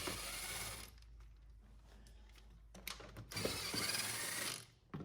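Ratchet wrench clicking rapidly as it undoes the 10 mm bolts holding the plate, in two bursts: one at the start, then a longer one about three seconds in.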